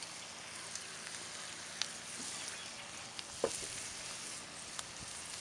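Ground beef with freshly added chopped onion and red and green bell pepper sizzling in a cast iron skillet on a grill: a steady hiss with a few small pops.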